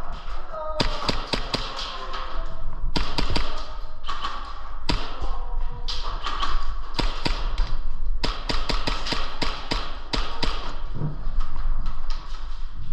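Sharp taps and knocks in irregular clusters of a few at a time, from players moving and shooting in an indoor airsoft game, over a steady low hum.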